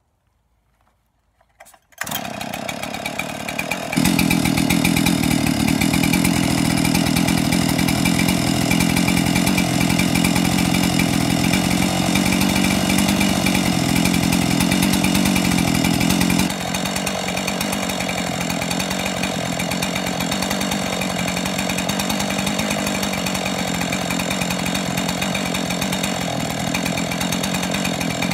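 Freshly rebuilt Husqvarna 576 XP two-stroke chainsaw running, with its impulse line reconnected and running well. It comes in about two seconds in, runs louder from about four seconds in, and drops to a lower steady level at about sixteen seconds.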